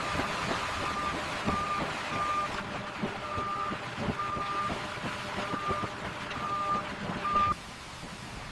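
A heavy construction vehicle's reversing alarm beeps about once a second, a single high tone, over running diesel machinery with occasional clanks. The beeping and machine noise cut off abruptly near the end.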